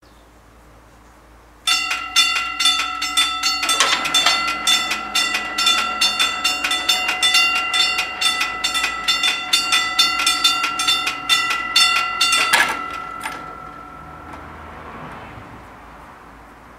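Level crossing bells start ringing with rapid, even strikes, about four a second, as the barriers come down. The ringing stops abruptly about 12.5 seconds in, after one louder clang, and its tone dies away over the next second or so.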